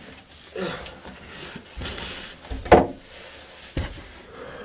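A few knocks and bumps from handling things at the ceiling. The loudest is a single knock a little under three seconds in, with a softer one about a second later.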